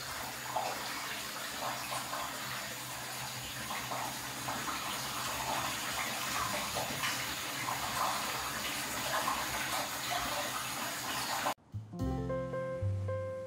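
Hot spring water running steadily into a bath, with a bubbling splash. It cuts off sharply near the end and music begins.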